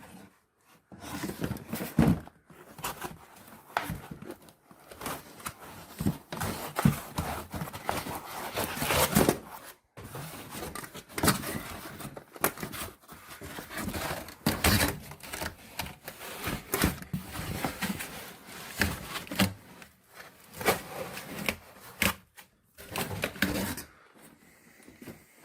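Unpacking by hand: packaging rustling and crinkling, with many irregular clicks and knocks as the light's parts are taken out of the box.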